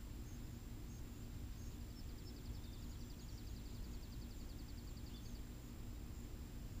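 Faint steady outdoor background with a low hum. From about two seconds in to about five seconds in, a fast, high trill of even ticks sounds in the distance.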